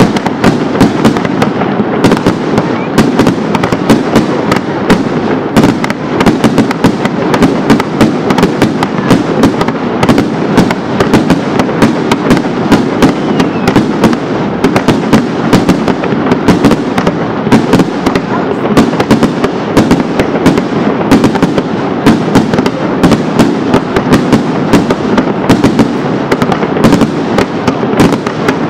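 Aerial firework shells launching and bursting in a fast, unbroken barrage of bangs, several a second.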